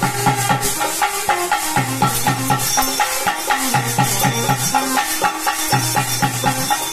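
Bhoota kola ritual music: a fast, steady beat of drums and jangling metal percussion, with a pitched wind instrument holding a melody of long notes over it.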